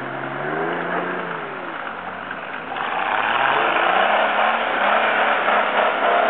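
Engines of several 4x4 off-road vehicles driving through snow, revving up and down. About three seconds in it gets louder and steadier as one vehicle accelerates.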